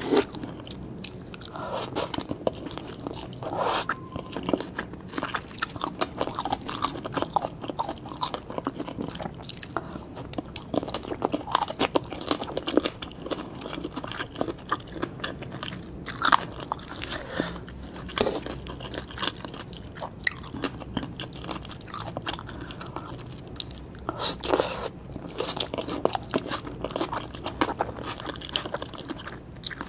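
Close-miked crunching and chewing of green papaya salad and raw vegetables, a steady run of irregular crisp bites and chews.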